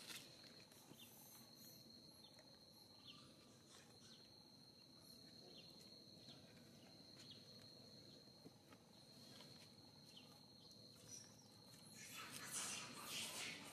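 Quiet outdoor ambience: a faint, steady, high-pitched insect drone with a few scattered small ticks. Near the end a louder rustling noise comes in.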